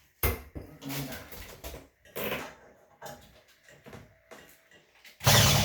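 A few scattered handling knocks and rustles, then near the end a power drill starts running to drive a screw in.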